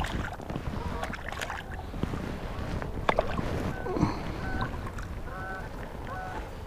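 A hooked largemouth bass splashing and thrashing at the water's surface as it is pulled in and grabbed by hand, with water dripping back into the pond. From about halfway through, geese honk repeatedly in the background, several short calls a second.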